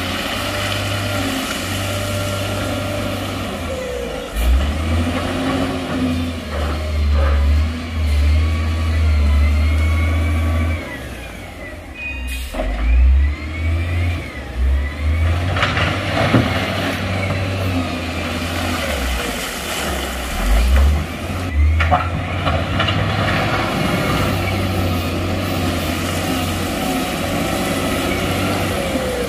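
Heavy diesel engines of earth-moving machinery running, their pitch rising and falling as they rev, with a few knocks midway.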